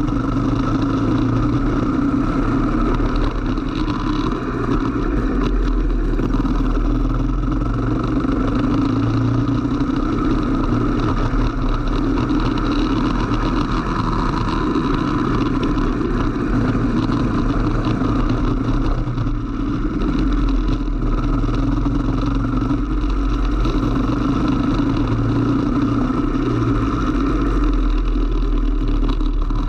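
Go-kart engine running continuously, heard from a camera mounted on the kart itself, as the kart laps at varying speed.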